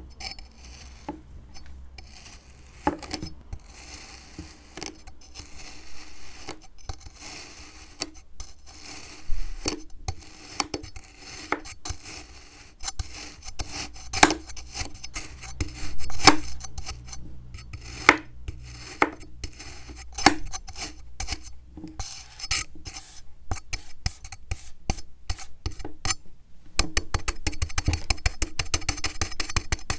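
Kitchen knife slicing through kinetic sand on a wooden table: a string of gritty scrapes and sharp knocks, one or two a second. Near the end comes a fast run of quick chops.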